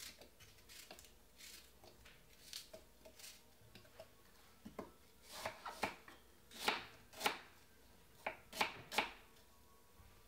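Kitchen knife cutting a peeled green apple into small pieces on a wooden chopping board: a run of irregular knocks, fainter at first and louder and closer together past the middle.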